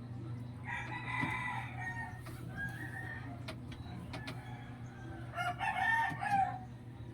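Domestic fowl calling twice: two long, drawn-out calls, the first about a second in and the second near the end, with a few faint clicks between them.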